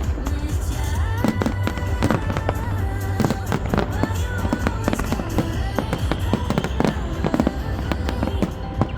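Fireworks bursting and crackling in quick, dense succession throughout, over loud music with a heavy bass beat.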